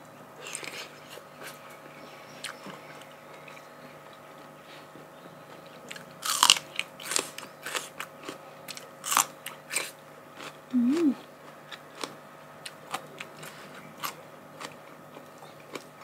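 A person biting and chewing crunchy food: crisp crunches and chewing at irregular intervals, the loudest about six and a half seconds in and again near nine seconds.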